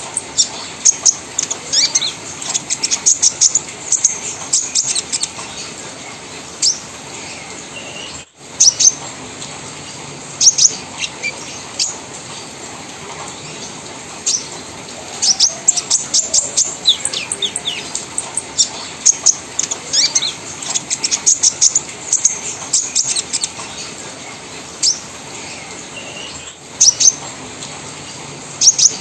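Olive-backed sunbird (kolibri ninja) chattering: rapid runs of short, sharp, high chirps in clusters of a few seconds, separated by pauses.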